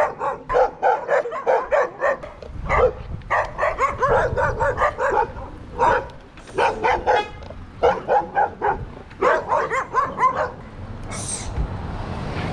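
Several dogs barking fast and without letup, short sharp barks overlapping in quick runs: a pack barking and chasing at a stranger on a bicycle. The barking dies away about ten seconds in, and a steady rushing noise follows near the end.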